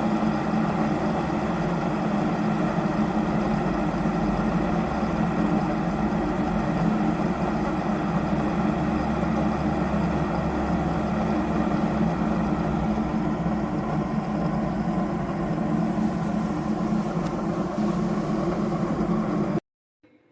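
Stainless steel electric kettle heating water: a steady low rumble with hiss that cuts off suddenly near the end.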